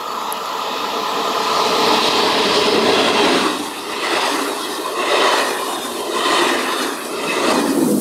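Electric locomotive-hauled passenger train of Corail coaches passing at speed, its wheels rumbling on the rails. The sound builds as it approaches, then swells and dips in a regular beat of about one pulse every second and a quarter as each coach's bogies go by.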